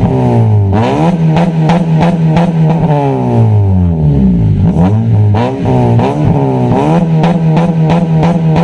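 Honda Civic FD engine heard through an HKS burnt-tip axle-back muffler, revved again and again. The pitch climbs and falls several times, with short stretches held steady between the blips.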